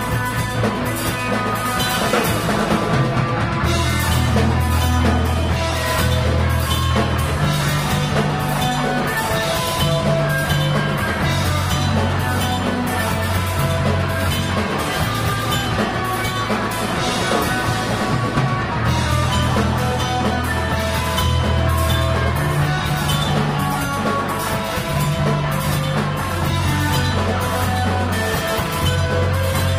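Live rock band playing: a drum kit with cymbals and an electric guitar over heavy sustained low notes that change every couple of seconds.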